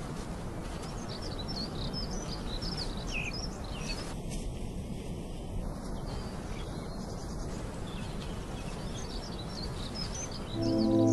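Small birds twittering in quick, high chirps, in two bouts, over a steady outdoor hiss. Music comes in loudly just before the end.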